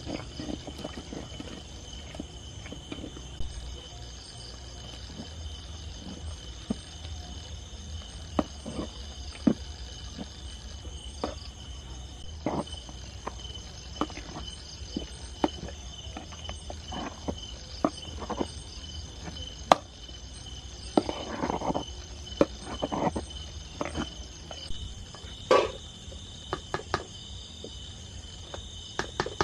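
Insects, crickets or similar, chirring steadily and high, with scattered sharp knocks and clatters from something being handled, a few louder ones about three-quarters of the way through.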